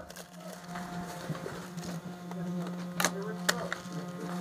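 Two sharp cracks about half a second apart, around three seconds in, typical of airsoft gun shots, over faint distant voices and a steady low hum.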